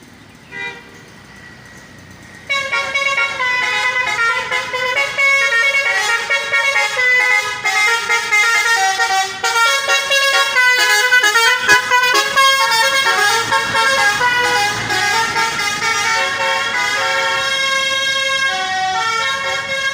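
Indonesian bus telolet horn, a Basuri-type multi-tone musical air horn, playing a tune with several notes sounding at once and the pitches changing in quick steps. It starts about two and a half seconds in and keeps playing.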